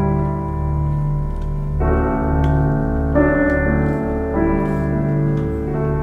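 Background music: sustained keyboard chords that change every second or so over a steadily pulsing bass.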